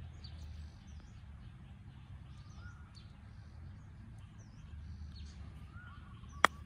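A golf club striking the ball once, a single sharp click near the end. Before it, birds chirp about once a second over a faint low rumble.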